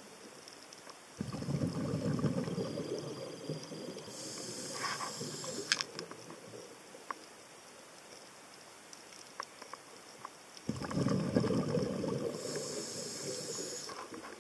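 Scuba diver breathing through a regulator underwater: two breaths, each a burst of exhaled bubbles burbling with the hiss of air through the regulator, about a second in and again near the end.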